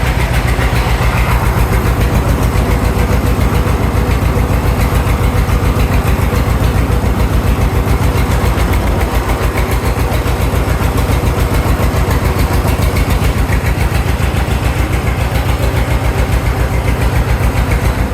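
An engine running steadily at a constant speed, loud and with an even, fast throbbing.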